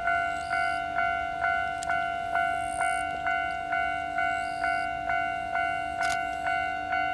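Japanese railway level-crossing warning bell ringing, an even ding about twice a second, signalling that a train is approaching.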